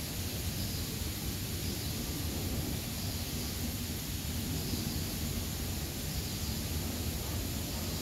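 Steady outdoor ambience: a low rumble under an even, high hiss, with a faint high call repeating about once a second.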